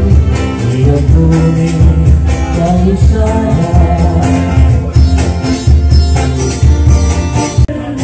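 Live music: a singer performing a song to guitar accompaniment over a steady bass beat.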